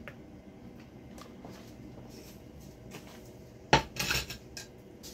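Kitchen handling sounds: scattered light clicks and clinks, then one sharp knock near the end followed by a brief clatter.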